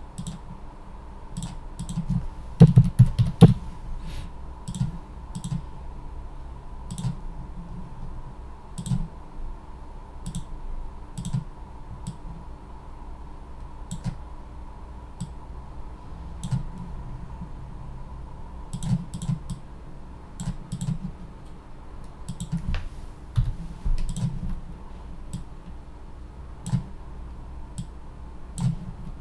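Computer mouse clicking at irregular intervals, sometimes a quick double click, with a louder knock or two about three seconds in, over a faint steady electrical hum.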